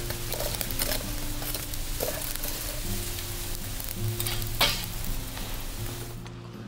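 Charcoal burning in a clay shichirin grill with a steady crackle and hiss, and a sharp click about four and a half seconds in. Soft background music with held notes underneath.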